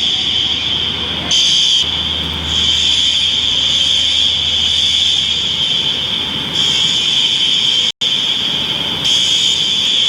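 Fire alarm sounder going off with a continuous high-pitched tone that swells slightly in level a few times. A low hum runs underneath and stops about six seconds in. The sound cuts out for an instant near eight seconds.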